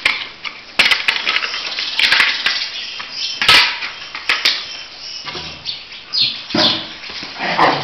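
Irregular clatter and knocks of several dogs scuffling on a concrete floor over a piece of wooden board, with a brief high squeak about six seconds in.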